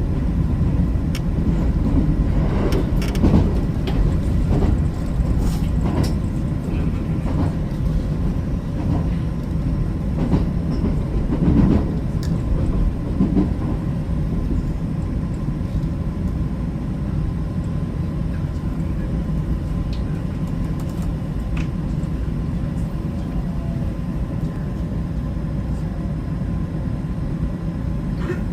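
JR West 225 series electric train running on the rails, a steady low rumble with scattered knocks and clacks from the wheels over rail joints in the first half, settling into a smoother, even rumble in the second half.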